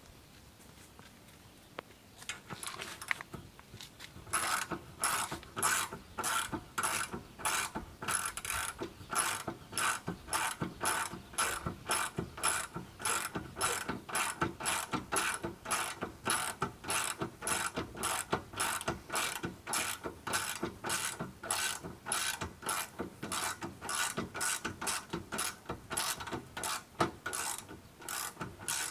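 Ratchet wrench worked back and forth on a bolt, its pawl clicking in short runs about twice a second, starting about four seconds in.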